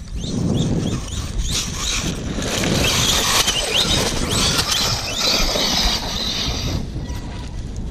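Losi DBXL-E electric RC buggy's brushless motor whining in short rising bursts as the throttle is worked, with its tyres tearing through grass and dirt as it slides and accelerates away.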